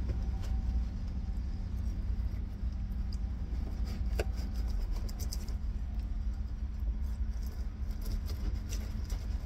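Knife and fork clinking and scraping against a plate while cutting food, a scatter of light clicks with one sharper clink about four seconds in, over a steady low rumble.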